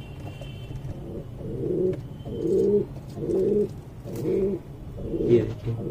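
Domestic pigeons cooing, a low call repeated about once a second.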